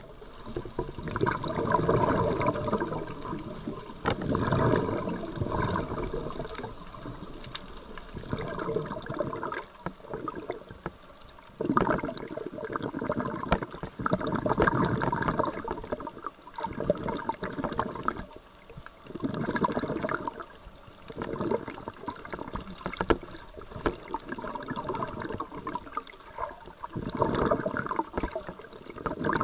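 Shallow water sloshing and gurgling, swelling and fading in surges every two to three seconds.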